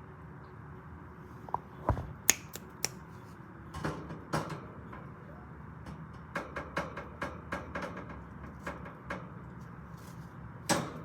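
A series of sharp, light taps and clicks over a steady low hum: a few about two seconds in, a quicker run of about three a second in the middle, and a louder one near the end.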